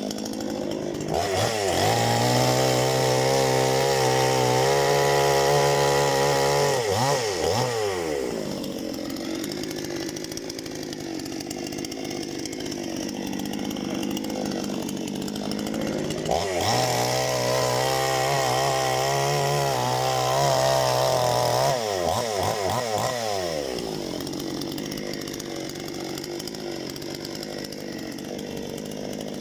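Parma BP-058 petrol chainsaw running at high revs twice, about 1 and 16 seconds in, each time with its pitch swerving and then giving way to a rougher, noisier stretch, as when the chain bites into a log and saws through it.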